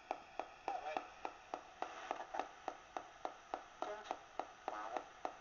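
Direct Linc ghost box radio sweeping through stations, with a click about three times a second and brief fragments of broadcast voices and tones caught between the clicks.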